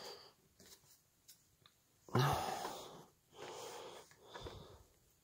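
A man breathing out hard three times in quick succession, starting about two seconds in, the first breath the loudest.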